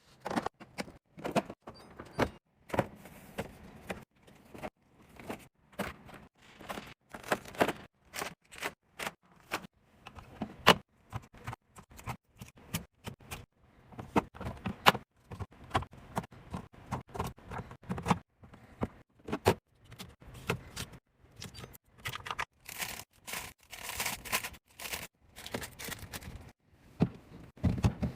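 Many short clinks, clacks and knocks of bottles, jars and plastic containers being picked up and set down, with a denser run of rattling near the end.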